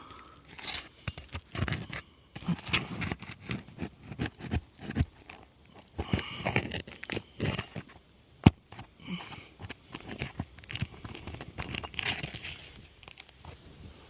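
Prying and scraping at asphalt roof shingles and a roofing nail with a metal hand tool. Irregular scrapes, crunches and metal clicks, with one sharp click about eight and a half seconds in.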